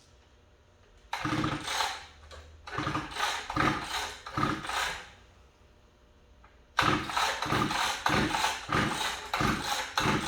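Small engine being cranked with its recoil pull cord in three pulls, each a run of even chugging strokes, without starting. The engine is being turned over to check for spark.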